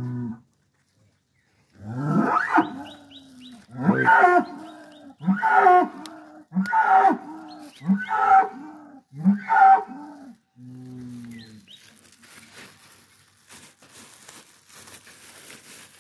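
Cattle mooing: six loud, drawn-out calls in a row, each dropping in pitch as it starts, about one every second and a half, then after a pause a shorter, lower moo.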